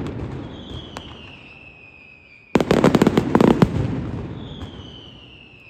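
Firecrackers at a daytime pyrotechnic show going off in dense rapid volleys. One volley fades out at the start, and another breaks out suddenly about two and a half seconds in, then fades away. Between the volleys a high whistle slides down in pitch.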